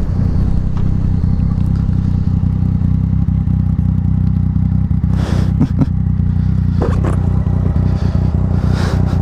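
Yamaha FZ-09 inline-three engine running at a steady cruise, a constant low drone, with two short rushes of air noise about five and nine seconds in.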